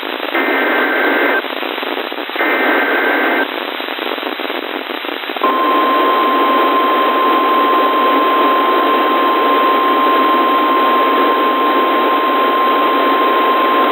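Emergency Alert System SAME header data over weather radio: two short, buzzy bursts of two-tone digital data about a second apart, then a stretch of radio static hiss. About five and a half seconds in, the NOAA Weather Radio 1050 Hz warning alarm tone starts and holds one steady pitch over the static, signalling that a warning follows.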